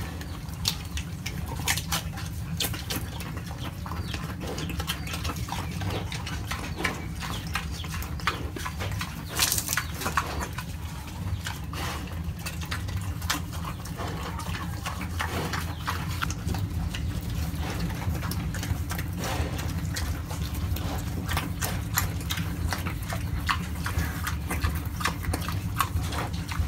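A domestic pig eating green vegetable stalks: irregular wet chewing and crisp snapping of the stems, many short clicks a second, over a steady low rumble.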